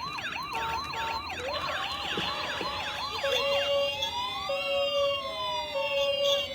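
Several toy ambulance electronic sirens sounding at once, starting suddenly: fast repeating wails overlap, and about three seconds in a two-tone hi-lo 'pee-po' siren and a slower rising-and-falling wail join in.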